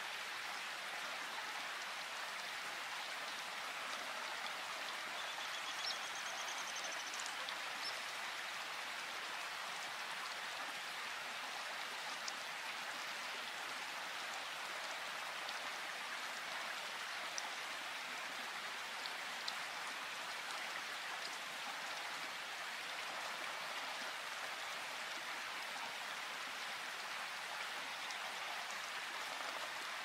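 Steady forest rain: an even hiss of falling rain, with now and then a single louder drop ticking.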